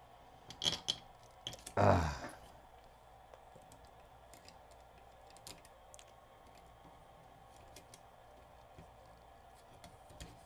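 Faint, scattered clicks of small plastic parts in a cassette deck's tape transport being handled as the pinch-roller retaining tabs are worked, with a short rush of noise about two seconds in.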